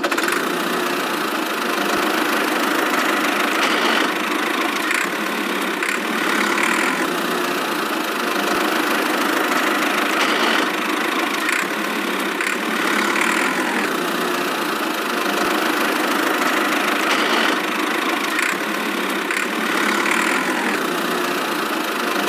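A small engine running steadily, with slight swells every few seconds and almost no deep low end.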